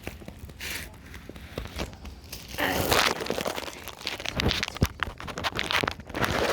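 Rustling and crinkling handling noises with scattered small clicks and scrapes as flea powder is handled and worked onto a dog, with a longer rustle about two and a half seconds in and a run of clicks near the end.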